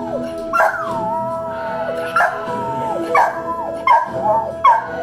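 Spaniel howling along to TV theme music: repeated short howls, each starting high and sliding down in pitch, about one a second, over the music's steady held notes.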